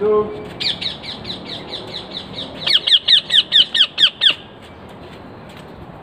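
A parrot in free flight gives a run of short, shrill, downward-sliding squawks, about five a second. They are faint at first and become loud and regular about halfway through, then stop.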